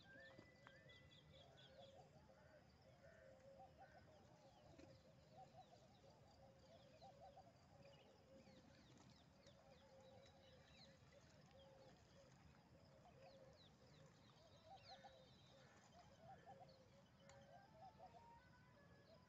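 Faint, continuous low cooing from a flock of feral pigeons (rock doves), rising and falling in repeated swells, with scattered short high chirps from other birds over it.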